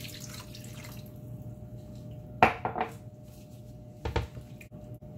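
Water pouring from a glass measuring cup into a pan of chicken and ketchup, trailing off about a second in. Then a sharp clack with a short clatter about two and a half seconds in, and another knock near four seconds, as utensils hit the pan while the mixture is stirred.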